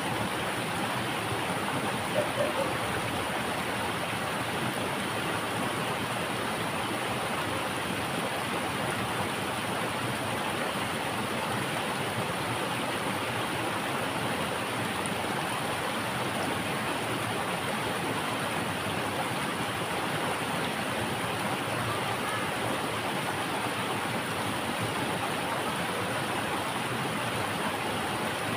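Fast, shallow rocky stream rushing and splashing over boulders in small cascades: a steady rush of water. A brief, slightly louder sound about two seconds in.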